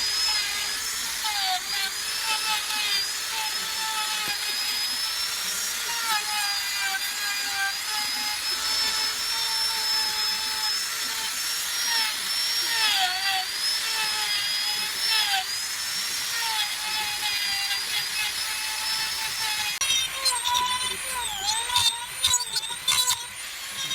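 Two-stroke chainsaw running at high revs while carving wood. Its pitch wavers and dips again and again, and about 20 seconds in it turns choppy, with quick rises and drops in pitch and loudness.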